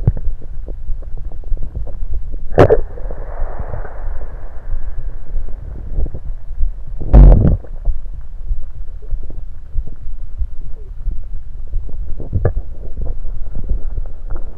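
Stomach gurgling after drinking soda, recorded close up: a constant low rumble broken by sudden gurgles, one followed by a soft hiss for a couple of seconds. The loudest gurgle comes about halfway through. These are the sounds of carbonated soda and its gas moving in the stomach.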